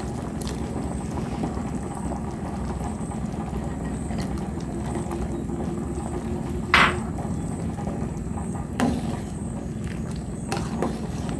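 A pot of clear pork-bone and bamboo-shoot broth bubbling steadily at a boil, with a short sharp knock about seven seconds in and a fainter one about two seconds later.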